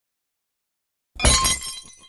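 Glass shattering sound effect about a second in: a sudden crash followed by shards tinkling, lasting just under a second.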